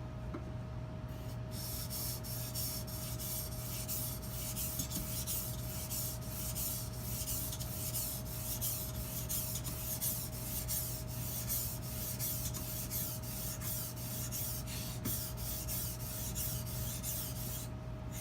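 Edge Pro sharpening stone stroked rapidly back and forth along a butcher knife's edge: a rhythmic rasping of roughly three strokes a second, starting about a second and a half in and pausing briefly near the end.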